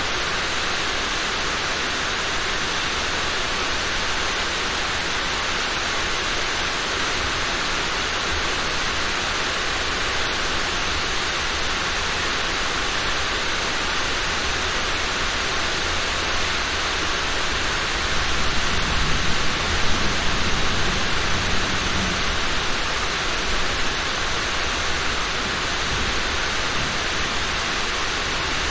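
Steady rain, an even hiss. About two-thirds of the way through, a low rumble of distant thunder swells for a few seconds.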